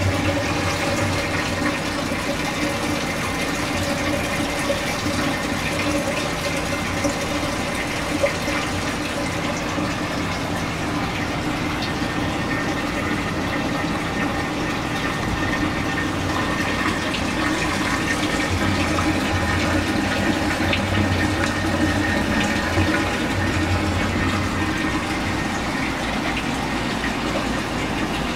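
Saltwater reef aquarium's water circulation running: a steady rush of flowing, splashing water with a steady low hum under it.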